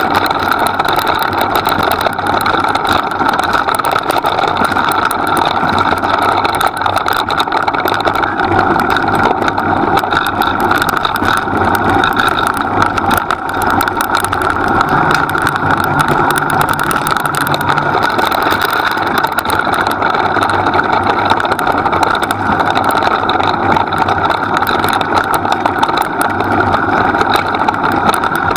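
Steady running noise of a dryland dog-training rig moving fast along a dirt forest track behind a two-dog team, unbroken and without change in pace.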